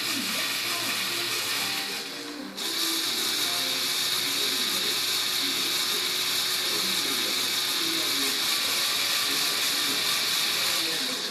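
A LEGO Technic car model's electric motors and plastic gear train running with the wheels spinning free, a steady whirring gear noise. It drops off briefly about two seconds in, then picks up again and runs on.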